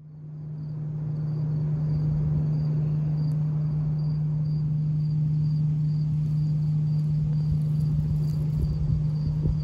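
A steady low hum over a low rumble, fading in over the first couple of seconds, with insects chirping faintly in an even, high-pitched pulse of a few chirps a second.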